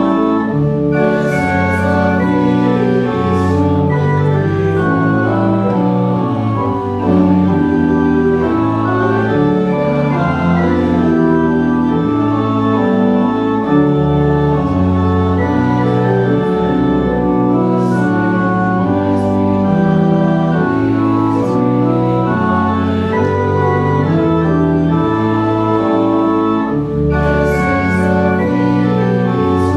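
Church organ playing slow, sustained chords over a moving bass line, a hymn-like piece at steady volume.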